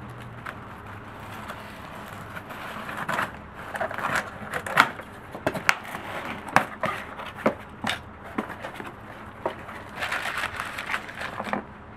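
A cardboard shipping box being opened by hand: a knife slitting the packing tape, then the flaps pulled open and plastic wrapping rustled inside. The sharp cardboard scrapes, clicks and rustles come thick from about three seconds in and stop just before the end.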